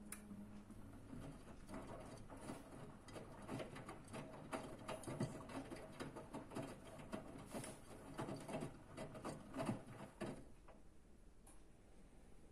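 Front-loading washing machine drum turning a wet load of laundry: cloth and water slosh and slap inside the drum in an irregular patter while the water level refills. The tumbling stops about ten seconds in.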